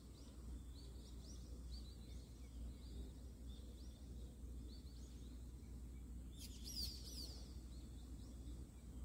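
Faint chirping of small birds, repeated short high notes, with a louder burst of quick sweeping calls about six and a half seconds in, over a low steady background rumble.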